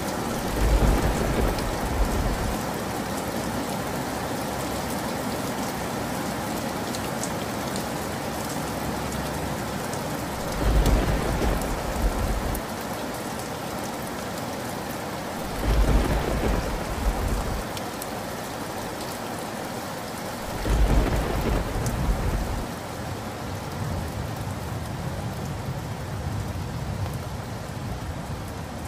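Steady rain with thunder rumbling four times, each rumble about two seconds long and the loudest sound, the first right at the start and the others about ten, fifteen and twenty seconds in.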